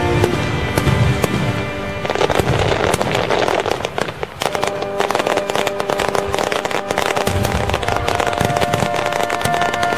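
Fireworks going off, with low booms and many sharp crackling bangs that grow denser about two seconds in, while music plays.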